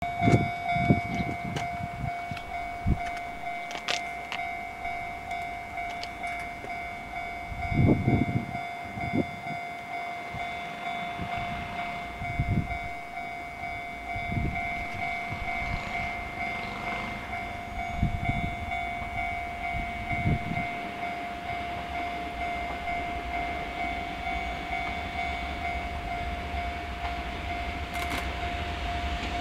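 A JR Freight EF200 electric locomotive hauling a container freight train approaches from a distance; its running noise swells near the end. A steady hum and a fainter higher tone sound throughout, with occasional low thumps.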